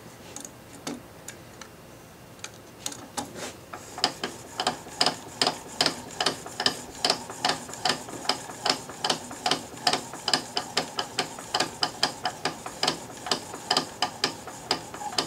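Blade held in a rolling sharpening jig being honed on a DMT diamond sharpening plate: a few separate scrapes at first, then quick back-and-forth strokes of steel on the diamond surface, about three to four a second.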